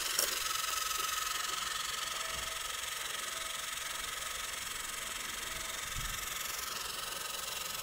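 A 12-volt methanol injection pump running steadily, feeding three AEM atomizing nozzles in a turbo volute at once. It makes a steady hiss of fine spray with a faint high whine held underneath.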